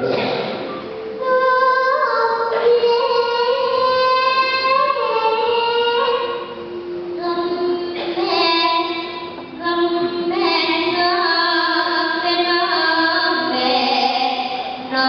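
A child pesindhen singing a Javanese sindhenan vocal line, holding long notes that step and slide from pitch to pitch.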